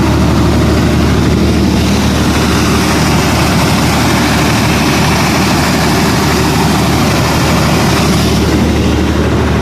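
Cummins diesel generator engine running steadily under load, now starting and running normally after a wiring fault was fixed.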